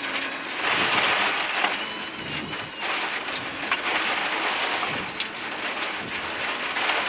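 Rally car at speed on a loose gravel road: a steady rush of tyre and gravel noise with stones clicking and pinging against the underbody, heard through the crew's helmet intercom.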